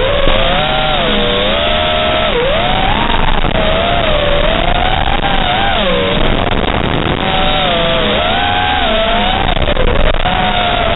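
Five-inch FPV racing quadcopter's motors (T-Motor 2207.5 1750KV) whining, the pitch sweeping up and down constantly with the throttle through turns, over a steady hiss.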